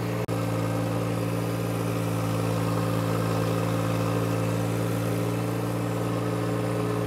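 John Deere compact tractor's three-cylinder diesel engine running steadily at an even speed as it pushes a front-loader-mounted land leveler through loose dirt, with a split-second break in the sound about a third of a second in.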